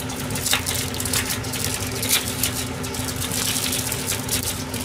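Thin plastic film crinkling and crackling in irregular bursts as an individually wrapped cheese slice is peeled open, over a steady low hum.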